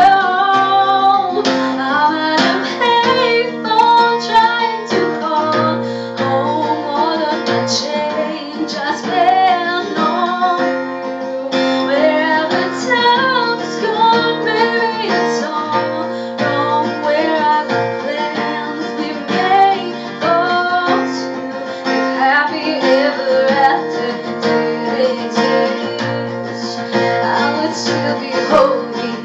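Music: a strummed acoustic guitar with a female voice singing over it.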